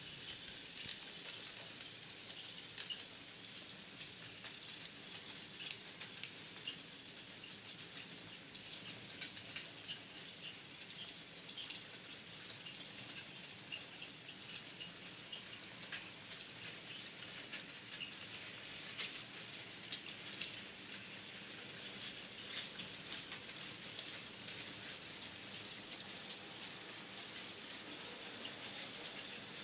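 00 gauge model goods train, a model ex-ROD 2-8-0 and its long rake of wagons, running past on the track: a faint steady whirr with quick, irregular clicking and rattling of the wagon wheels.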